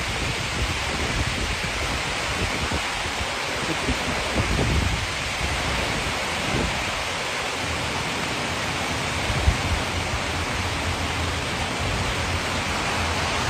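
Heavy rain pouring down steadily, with irregular low gusty rumbles underneath.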